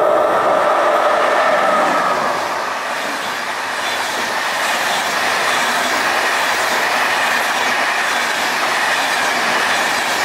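Passenger train passing at speed. A steady multi-pitched tone sounds for about the first two seconds, then gives way to the loud, even rush of the coaches' wheels on the rails going by.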